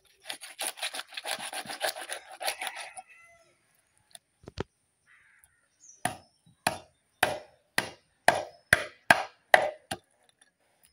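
Knife working fish on a wooden cutting board while cleaning it: a quick run of scraping strokes in the first three seconds, then about nine sharp strokes at roughly two a second.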